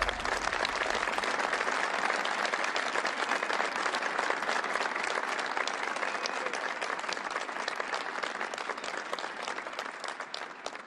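Audience applauding, a dense clapping that thins and dies away near the end.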